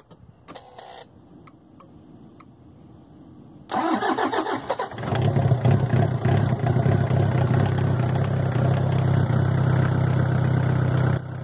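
Toyota 1KZ-TE 3.0-litre four-cylinder turbo-diesel cranking on the starter and catching after about a second, then settling into a steady idle: its first start after new injectors were fitted and the fuel lines bled. A few faint clicks come before the cranking.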